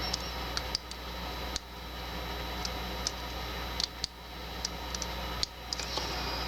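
Irregular light metallic clicks and ticks of a lock pick and tension wrench working the pins inside a Doit weatherproof padlock's keyway during single-pin picking.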